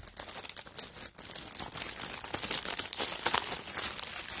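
Clear plastic packaging crinkling and rustling as it is handled, a continuous run of fine crackles that grows louder toward the middle.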